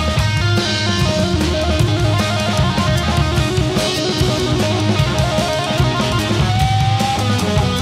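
Live blues-rock band: an overdriven Stratocaster-style electric guitar through a Marshall amplifier plays lead lines over bass and drum kit, with a long held, slightly rising note near the end.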